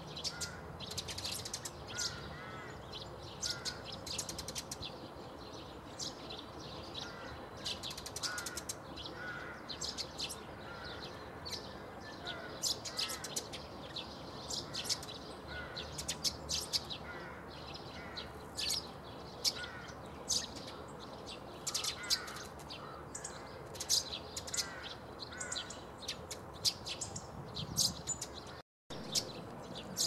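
Eurasian tree sparrows chirping: a constant stream of short, high chirps with softer, lower warbling notes now and then. The sound cuts out for a split second near the end.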